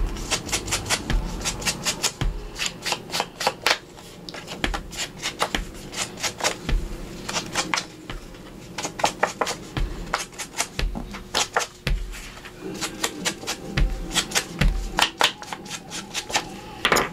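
Ink blending tool dabbed on an ink pad and rubbed along the edges of a paper tag: dense runs of quick taps and scrapes, with a soft low thump every second or two.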